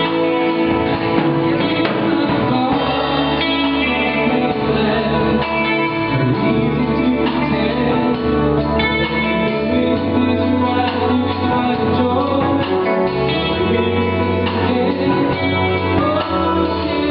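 Live band playing a song, guitar to the fore over a bass line that moves from note to note every second or two.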